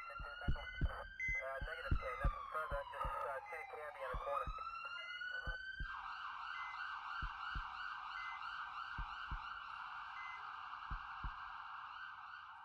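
Siren sound effect over a kick-drum beat in a song's instrumental break. The siren slowly wails up and down, then switches to a fast warble about six seconds in.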